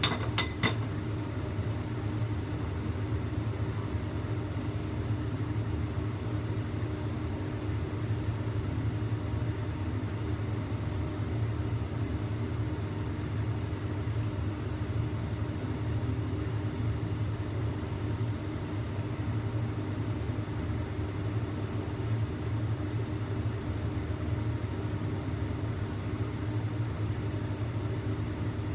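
Steady low rumble of a lit gas burner under a lidded wok of boiling steaming water, with a steady hum. A few light metal clinks of a utensil against a stainless saucepan in the first second.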